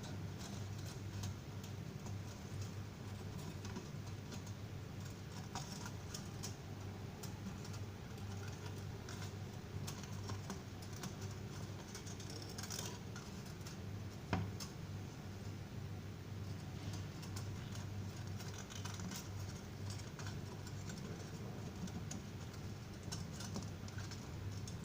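Scattered light clicks and taps of small parts being handled, over a steady low hum, with one sharper click about fourteen seconds in.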